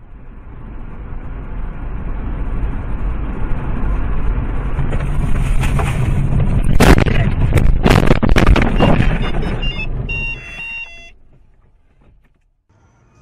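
A car colliding with a tractor, heard from inside the car: road and wind noise builds as it drives, then a series of loud crashing impacts of crunching metal and glass from about seven to nine seconds in as the car is knocked off the road and tumbles. A short run of electronic beeps follows, then the sound drops away.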